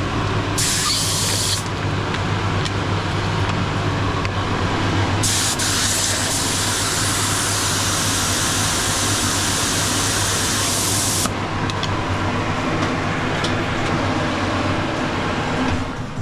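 Compressed-air spray gun triggered in two hisses, a short one of about a second and then a long one of about six seconds, likely the gun being cleaned out the old way by spraying thinners through it. A steady hum runs underneath throughout.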